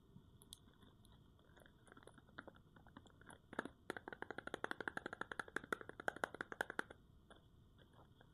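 Dry bar soap being cut or crumbled with a knife: a few scattered crackles, then, about three and a half seconds in, a quick run of crisp crunching clicks, about ten a second, lasting some three seconds.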